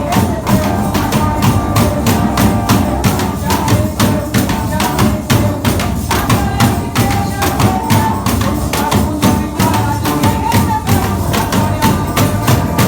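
Percussion-led band music: a steady beat of sharp strikes, with a melody line held above it.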